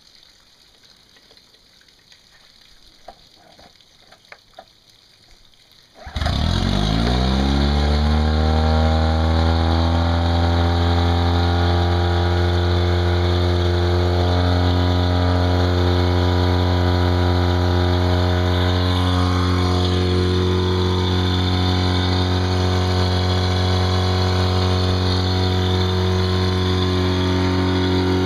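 Tohatsu four-stroke outboard motor starting about six seconds in, its pitch rising briefly as it catches, then idling steadily. Before it starts there are only a few faint clicks.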